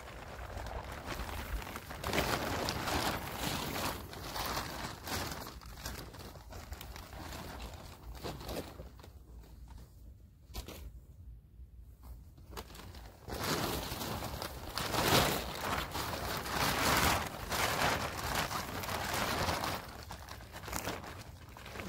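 Uneven rustling and crunching, as of dry leaves or crinkly material being stepped on or handled, with a quieter few seconds around the middle.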